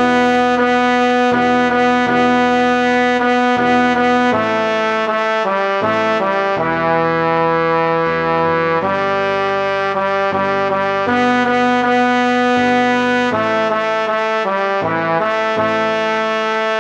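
Computer-rendered part-practice track of a four-part men's chorus arrangement (T1, T2, B1, B2), with the vocal lines played as steady, brass-like synthesized tones. Several held notes sound together as chords, moving to new notes every second or two with short breaks between them.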